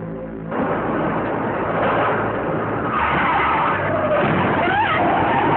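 Dashcam recording from inside a moving car: loud road and wind noise cuts in abruptly about half a second in. From about three seconds in, wavering, gliding higher-pitched sounds rise over it.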